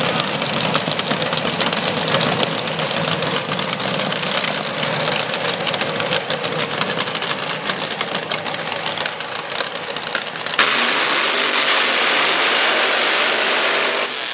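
Top Alcohol dragster engines idling with a rough, crackling lope. About ten and a half seconds in, the sound jumps suddenly to a louder, steady full-throttle run as a dragster does a burnout, its rear tyres spinning.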